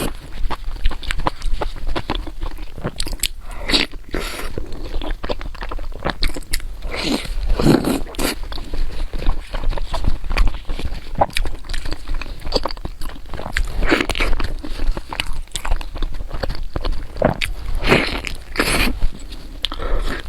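A person eating close to the microphone, chewing and biting with a steady run of irregular wet clicks and crunches.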